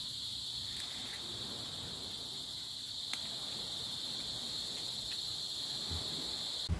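Crickets trilling steadily in a continuous high-pitched chorus that cuts off suddenly near the end.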